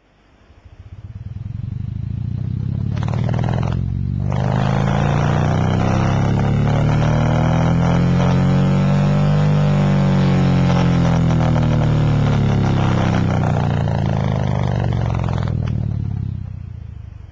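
A 4-inch Silvercrest subwoofer in a ported enclosure playing a 1–50 Hz sweep at extreme cone excursion. It gives a loud, low, rough buzzing that swells up over the first couple of seconds, holds steady, and fades away near the end.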